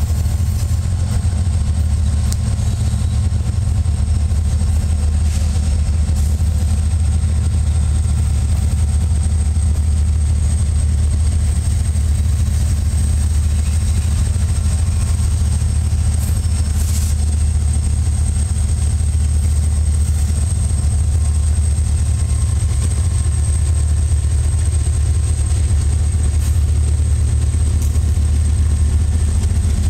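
Several diesel-electric freight locomotives running as they pull past, a steady deep engine rumble.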